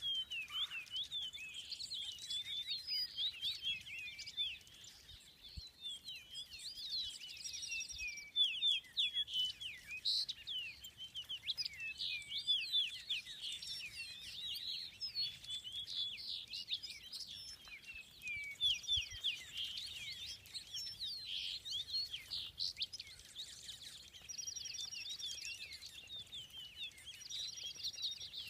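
A dense chorus of small songbirds chirping and twittering without pause, many calls overlapping, with a few short trills now and then.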